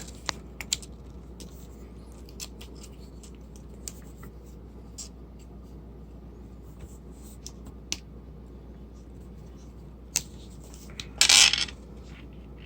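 Leatherman Rebar multi-tool being handled: scattered light clicks and taps of the metal tool, with one louder scraping clack about eleven seconds in.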